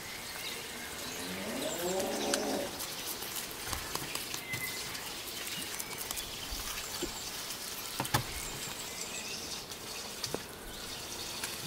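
Birds chirping in the background, with a low cooing call that rises over about a second near the start. There is a sharp knock a little past the middle.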